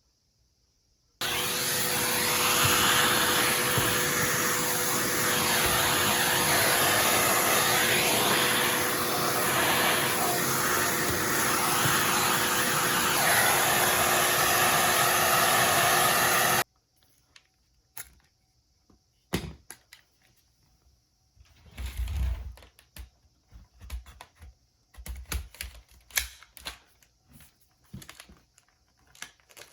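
Vacuum cleaner switched on about a second in, running steadily for about fifteen seconds, then cutting off suddenly. Afterwards come scattered clicks and knocks, with one heavier thump, of handling.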